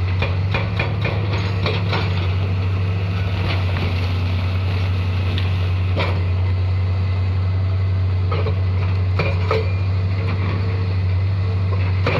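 Hitachi hydraulic excavator's diesel engine running steadily under work, with scattered short knocks and clanks, a few in the first two seconds, one about six seconds in and more between about eight and nine and a half seconds.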